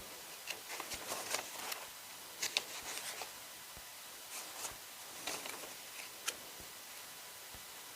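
Album paper and cardboard pieces being handled: faint, scattered rustles and light ticks, a few in quick succession, with pauses between.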